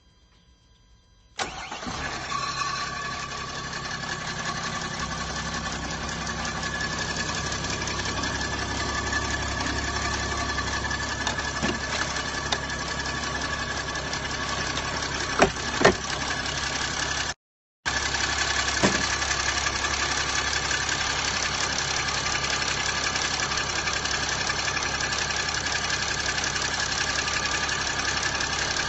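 Chrysler 300C CRD's 3.0-litre V6 diesel engine cranking and starting about a second in, then idling steadily. A few sharp clicks stand out around the middle, and the sound cuts out for a moment just past halfway.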